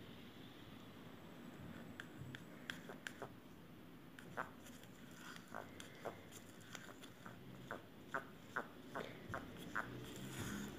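Wooden stirring stick clicking and scraping against a small plastic cup while thick two-part foam resin is mixed and scraped out into a silicone mould. Faint, irregular sharp ticks, a few at first and about two a second from halfway on.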